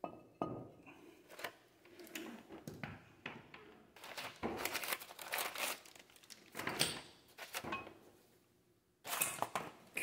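Brake parts being handled off-camera: irregular knocks and clunks of metal parts, mixed with crinkling and rustling of packaging.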